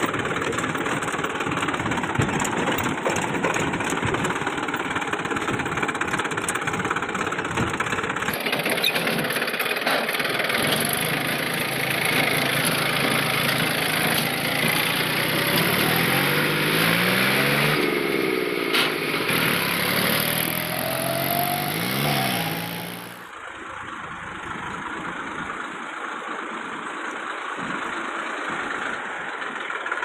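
Massey Ferguson 241 DI tractor's diesel engine running as the tractor drives. The sound changes abruptly about 8 seconds and 23 seconds in, and is quieter after the second change.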